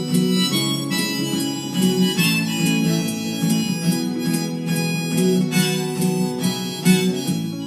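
Harmonica playing a melody over a strummed acoustic guitar.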